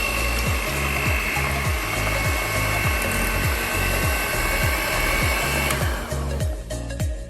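Hand-held electric mixer running steadily with a high whine as it beats eggs into a sugar and cocoa mixture, cutting off about six seconds in. Background music with a steady beat plays underneath.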